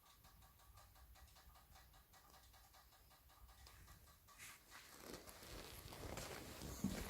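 Faint, rapid, regular knocking or ticking from a vehicle after its engine has been switched off, several ticks a second. From about four and a half seconds in, louder irregular rustling and handling noise covers it.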